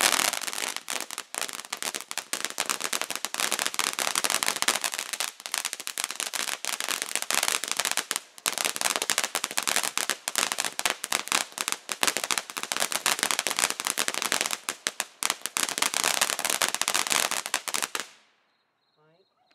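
Ground fountain firework spraying crackling stars: a dense, rapid run of crackling pops that cuts off suddenly about eighteen seconds in as the fountain burns out.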